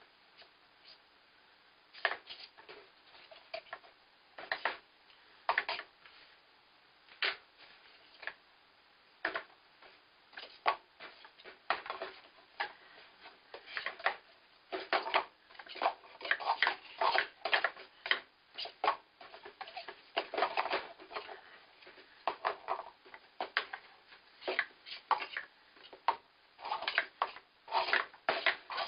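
Plastic sport-stacking cups clicking and clacking against each other and the table: scattered clicks at first, then a quick, busy clatter of cups being stacked and unstacked from about halfway through.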